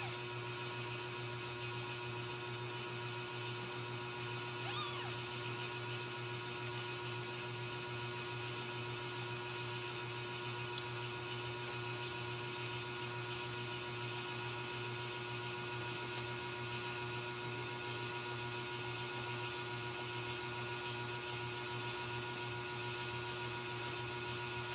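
Steady hum with a high whine, even in level throughout, and one faint, brief mew from a newborn Ragdoll kitten about five seconds in.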